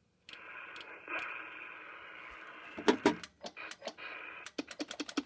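Kraco SSB De Luxe CB radio hissing with open-channel static from its speaker, broken by sharp clicks from the rotary channel selector being turned. A few scattered clicks and a loud pair come first, then a fast run of about eight clicks a second near the end.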